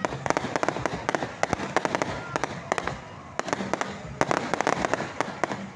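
Fireworks going off in a rapid, irregular series of sharp pops and bangs, thinning briefly about three seconds in before picking up again.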